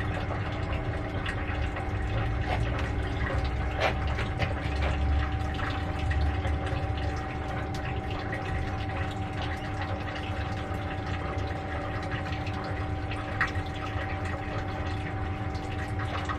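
Small electric brewing pump humming steadily while sparge liquid runs and splashes into the mash tun. There is one short knock about four seconds in.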